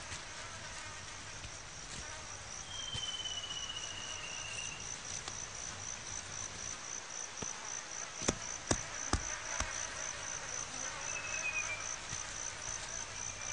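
An insect chirps steadily in a high, even pulse, about three chirps a second. Over it come a thin falling whistle about three seconds in and a shorter one near eleven seconds, and a few sharp clicks around eight to nine seconds in.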